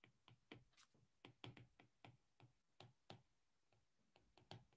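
Faint, irregular taps and clicks of a stylus on a tablet screen during handwriting, about a dozen short ticks.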